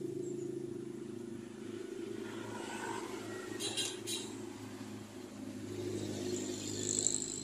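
A motor vehicle's engine runs steadily in the background and dies away near the end. Thread drawn through a shoe sole during hand-stitching gives a couple of short rasps about four seconds in.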